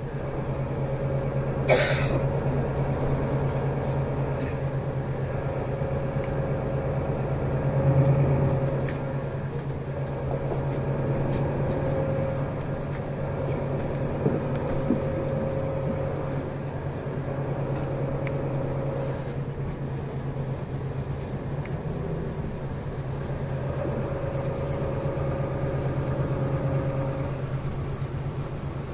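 Interior of a city bus on the move: a steady low engine and drivetrain drone with a fainter higher hum. There is a sharp knock about two seconds in and a brief swell in engine noise around eight seconds.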